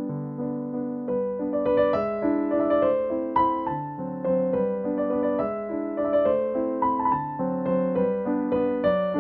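Background piano music: a slow melody of struck notes over lower held notes.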